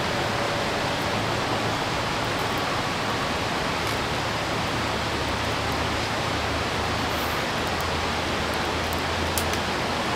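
Steady rush of a flowing valley stream, with a few sharp crackles from the burning wood fire, one about four seconds in and one near the end.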